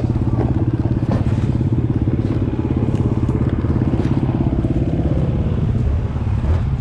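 Dirt bike engine idling steadily at low revs, its pitch unchanged throughout, with a few light knocks as the fallen bike is handled.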